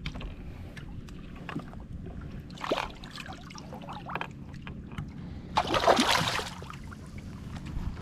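Water splashing beside a boat as a redfish is held in the water and released. A short splash comes about three seconds in, and a louder, longer one about two thirds of the way through.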